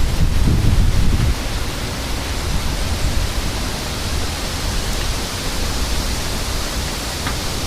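Severe thunderstorm wind and rain making a steady, loud rushing hiss, with gusts buffeting the microphone in the first second or so.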